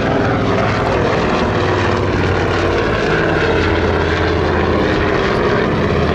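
Avro Anson's twin radial engines and propellers running steadily as the aircraft flies past low and close.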